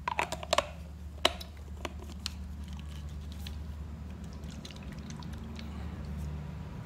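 Several sharp clicks and taps in the first second and a half, then a few faint scattered ticks, over a steady low hum.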